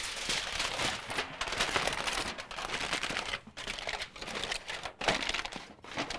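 Heavy-duty aluminium foil crinkling and crackling as it is pushed and pressed by hand into a wire-mesh sieve, with a couple of brief pauses.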